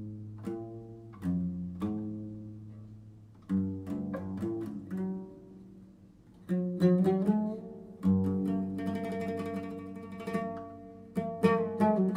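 Background music: plucked string notes that ring and fade, over held low notes.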